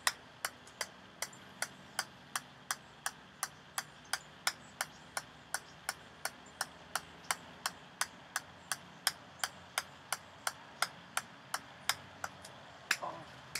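Ping-pong ball bouncing over and over on the steel head of a 6-pound sledgehammer, a sharp even tick about two and a half times a second. Near the end the rhythm breaks off and a few irregular, louder knocks follow as the run ends.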